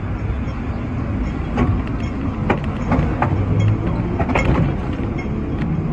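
Hong Kong sixth-generation teak-bodied tram running along its street tracks, heard from on board: a steady low rumble with irregular sharp clicks and clacks of the wheels over the rails from about a second and a half in.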